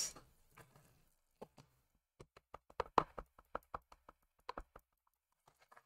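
Quick light taps and clicks of a clear acrylic stamping block being handled and pressed down while stamping, about twenty small knocks that start over a second in and stop shortly before the end.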